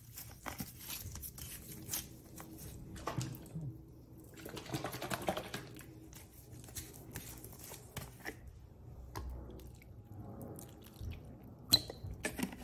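Bottled Italian dressing being poured out in drips and splashes onto shredded iceberg lettuce and red onion rings in a glass bowl, with small handling clicks and one sharp click near the end.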